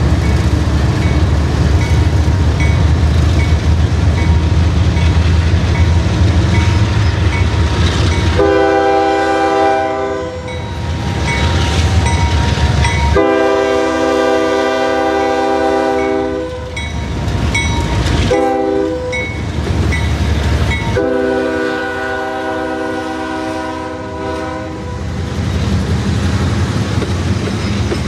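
Diesel freight locomotives passing close by, their engines rumbling, then a multi-chime locomotive horn sounding two long blasts, one short blast and one long blast: the grade-crossing signal. Under the horn and after it, the freight cars rumble and clatter past on the rails.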